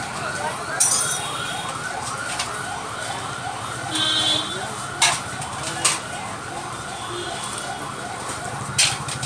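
A siren-like electronic tone rising and falling quickly, about three or four times a second, over street noise, with a few sharp knocks in between.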